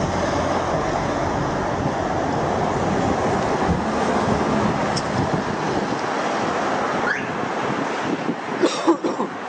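Steady rushing noise outdoors: wind buffeting the microphone over the sound of road traffic.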